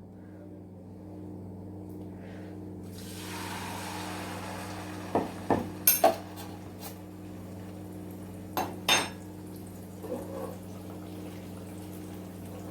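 Batter-dipped ripe nendran banana slices going into hot oil in a pan: the oil starts to sizzle about three seconds in and keeps sizzling. There are a few sharp clinks of utensils, and a steady low hum runs underneath.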